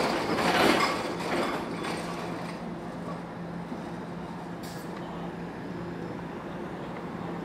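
SEPTA Kawasaki light-rail trolley rolling away around a curve on street track, its wheel-on-rail noise loudest at first and fading over about two seconds. A steady low hum is left after it.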